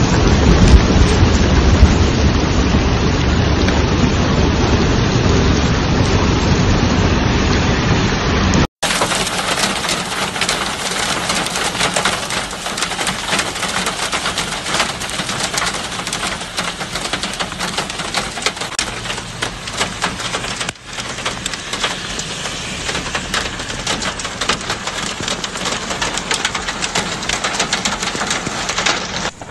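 Heavy rain pouring, with a strong low rumble under it for the first third. About a third of the way in the sound cuts abruptly to a second recording of rain: a dense fine patter with much less low end.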